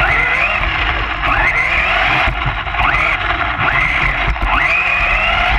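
Electric motor of a Traxxas Slash 4x4 RC short-course truck whining up in pitch and dropping again as the throttle is worked, about once a second, over a low rumble.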